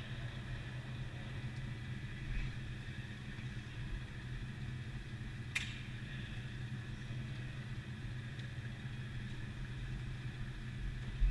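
Steady low hum of an indoor go-kart hall while the karts sit waiting, with one sharp click about five and a half seconds in.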